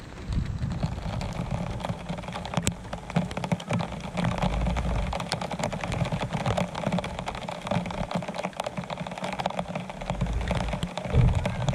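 Rain pattering close to the microphone, a dense, irregular run of small ticks and taps over a steady hiss.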